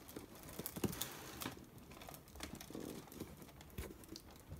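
Paper scroll of a hand-cranked crankie crinkling and rustling as it is wound across the spools, with scattered light clicks and knocks from the crank.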